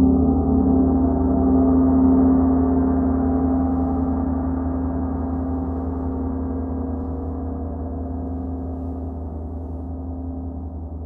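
Gong ringing on after a strike just before, a deep, rich tone with many overtones that swells slightly about two seconds in and then slowly fades.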